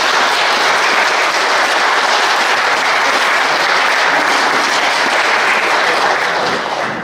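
Audience applauding steadily at the close of a talk, then cut off suddenly at the very end.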